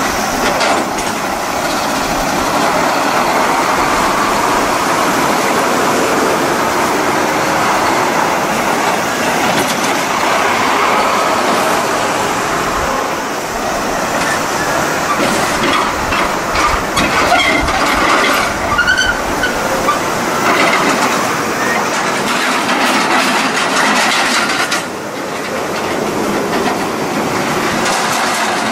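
Heavy tractor-trailer trucks passing close by in a turn: diesel engines running, with the rattle and clatter of container trailers and empty skeletal chassis rolling past.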